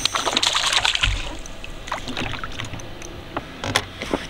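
Splashing water as a small smallmouth bass is brought in, then a dull thump about a second in and several light knocks and clicks in the boat as it is handled.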